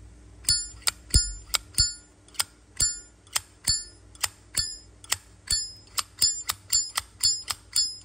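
A Zippo lighter's hinged metal lid flicked open and snapped shut over and over, about two to three sharp ringing clicks a second. This is the lid 'ping' by which these lighters are judged, here from an all-original lighter whose sound the seller calls good.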